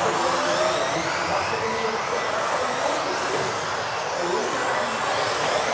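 Several 1:10 electric off-road RC buggies with modified brushless motors racing together. Their motors whine in high tones that rise and fall as they accelerate and brake, over a steady rush of tyre and drivetrain noise.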